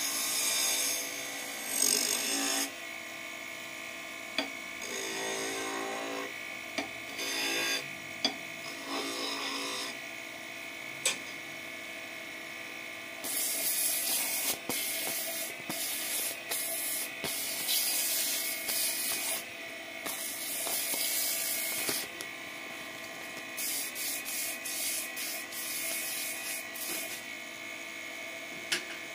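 Wood lathe motor running steadily with a high whine while a flat chisel scrapes the spinning wood at the start. About halfway through, the spinning piece is sanded by hand, giving long stretches of loud hissing, with a few sharp clicks along the way.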